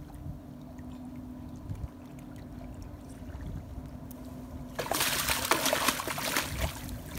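Water splashing and sloshing around a landed striped bass held in shallow water, starting suddenly and loudly about five seconds in with irregular splashes; before that only a low rumble.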